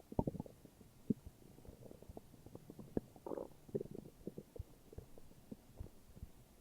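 Human stomach growling: an irregular run of short gurgles and pops, the loudest near the start and about a second in, with a longer bubbling gurgle about three seconds in.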